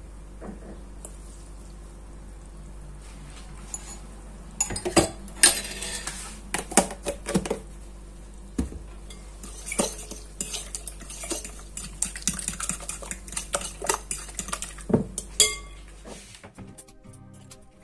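Metal fork whisking an egg and yogurt mixture in a glass bowl, clinking sharply and irregularly against the glass. The stirring starts about four seconds in and stops near the end, over a steady low hum.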